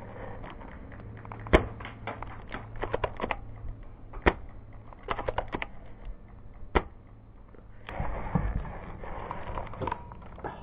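Airsoft sniper rifle firing three single sharp shots a couple of seconds apart, the first the loudest, with quick runs of small clicks between the shots. Near the end there is a couple of seconds of rustling.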